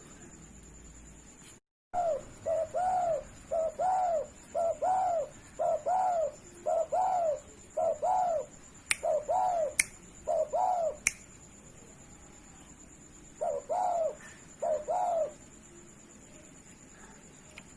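Spotted dove (derkuku) cooing: a quick run of short, arched coos for about nine seconds, a pause, then a few more coos. A few sharp clicks fall among the coos.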